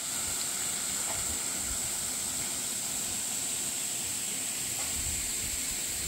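Steady outdoor ambient hiss: an even rushing noise with a constant high-pitched band on top, unchanging throughout.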